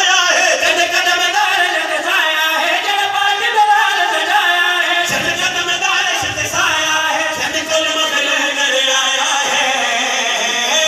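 A man chanting a devotional qasida in a long, melodic voice through a microphone and loudspeaker.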